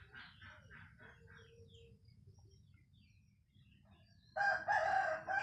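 A rooster crowing once, about a second long, near the end, after a few faint scattered calls.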